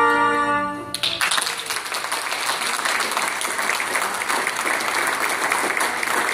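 A trumpet's held final note stops about a second in, and a small congregation applauds.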